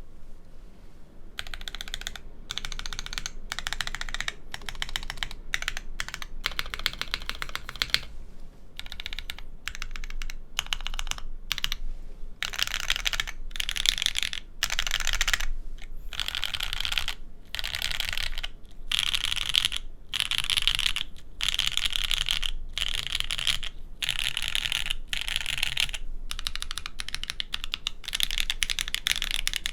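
Fast typing on a Chimera65 mechanical keyboard with JWK Popus switches on an FR4 plate, the gasket-mounted board giving a deep, full sound. The keystrokes come in rapid runs of a second or more, with brief pauses between them.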